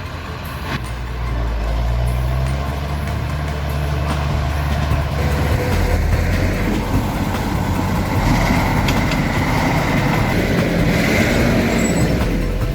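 Heavy vehicle's diesel engine running at low revs, its low note shifting about halfway through.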